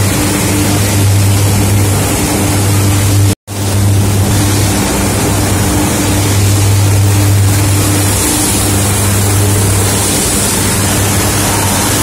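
Sugar mill machinery running: a loud, steady industrial drone with a constant low hum under a wash of noise. The sound drops out for a split second about three and a half seconds in.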